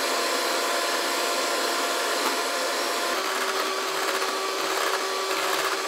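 Cuisinart five-speed electric hand mixer running steadily, its beaters whipping egg whites in a ceramic bowl toward stiff peaks. The motor's whine shifts in pitch about three seconds in.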